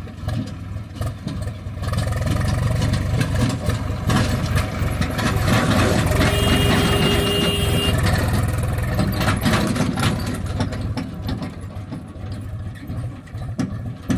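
Swaraj 735 FE tractor's three-cylinder diesel engine running as it drives by pulling a tipping trailer, growing louder about two seconds in and easing off after about ten. A brief steady whine sounds around the middle.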